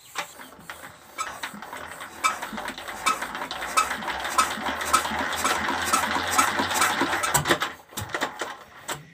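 Old stationary diesel engine being hand-cranked without catching: a metallic clack comes about every two-thirds of a second over a low hum, then stops near the end. The engine will not start.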